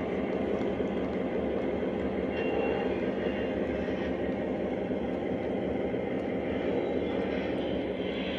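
O gauge model train rolling past on the layout track: a steady rumble of metal wheels on rail that runs on without a break.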